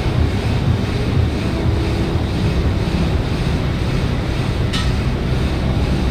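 Air bike's fan whooshing steadily as it is pedalled hard, with a pulsing rush of air. A brief click about three-quarters of the way through.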